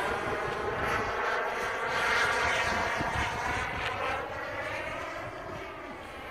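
Radio-controlled scale Saab Viggen model jet flying overhead, its engine making a steady whine. The pitch bends up and down as the model passes, and the sound fades somewhat near the end before building again.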